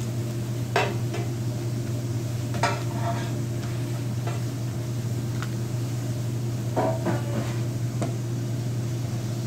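A kitchen knife cutting pineapple on a cutting board, giving a handful of short sharp knocks scattered through, over a steady low hum.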